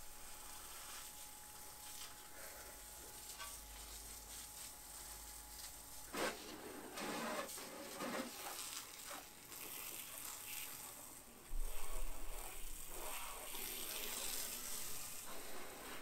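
Garden hose spray nozzle hissing steadily as water is sprayed onto a car. After about six seconds come a few brief louder noises and, about twelve seconds in, a loud low rumble.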